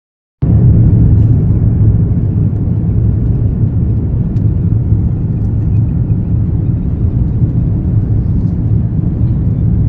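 Steady, loud, low vehicle rumble that cuts in abruptly about half a second in and holds steady.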